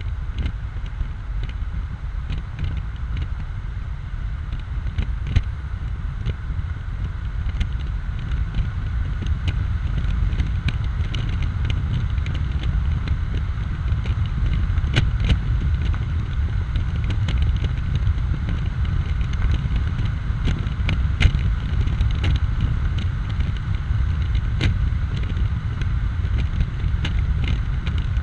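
Wind rushing over the open cockpit of a 2004 BMW Z4 2.5i roadster driven at speed with the top down, buffeting the microphone over steady road noise. It grows slightly louder as it goes, with scattered sharp clicks throughout.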